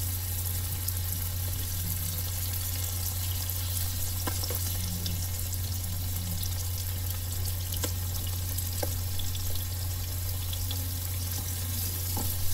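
Fish roe frying in hot olive oil in a non-stick pan: a steady sizzle, with a few light clicks of tongs against the pan and a steady low hum underneath.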